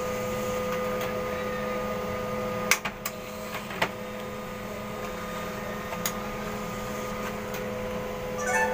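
Small laser printer printing a page: a steady mechanical hum with a few sharp clicks from the paper feed as the printed sheet comes out, stopping near the end.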